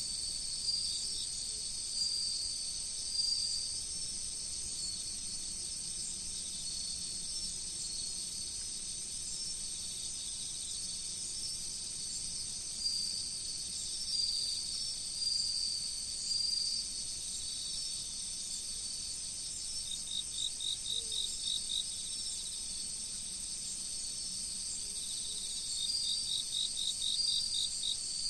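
Autumn crickets and other insects chorusing: a steady high-pitched ringing with trills coming and going. Twice, about 20 seconds in and again near the end, one insect adds a short run of rapid, evenly spaced chirps.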